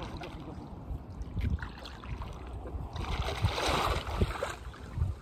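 Rubber chest waders sloshing and splashing through shallow lake water as a person wades, with heavy steps. The splashing grows louder from about three seconds in. Wind rumbles on the microphone underneath.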